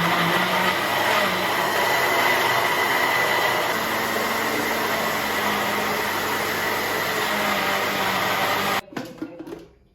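Electric kitchen blender running steadily at speed with a high whine over a low hum, switched off abruptly about nine seconds in.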